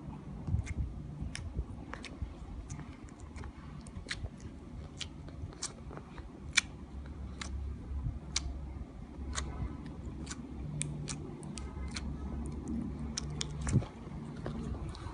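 Slime being worked by hand, giving irregular sharp clicks and pops from trapped air, one to three a second, over a low steady hum.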